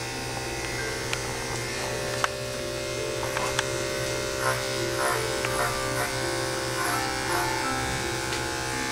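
Corded electric dog grooming clipper running steadily as it shaves down a matted coat, with a few small clicks from the blade. Background music plays throughout.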